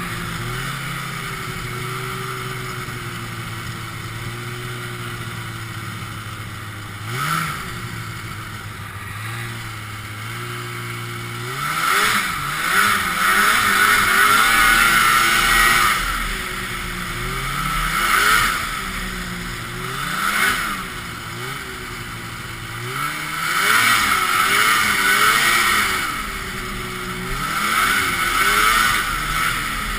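Ski-Doo Blizzard 5500 snowmobile's 503cc two-stroke engine running under way. It holds a steady pitch for about the first ten seconds, then revs up and eases off again and again as the throttle is opened and closed.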